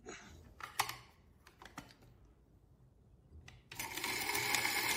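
A few light clicks as the grinder's controls are set, then about three-quarters of the way in the Timemore Sculptor 064S flat-burr grinder's motor starts and runs steadily, grinding coffee beans fine for espresso.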